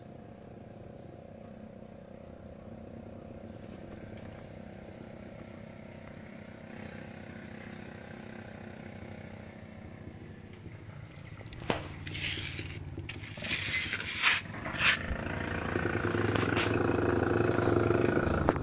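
Faint steady background with a thin high whine, then several sharp clicks and scrapes of handling about two-thirds of the way through. Near the end a motorcycle engine running nearby comes up and grows louder.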